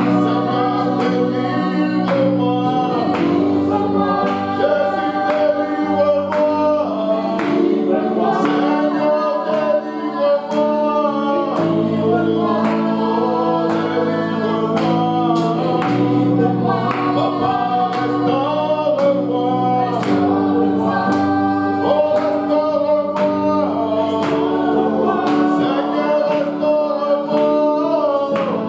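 Gospel worship music: a choir singing over held keyboard chords, with a steady drum beat.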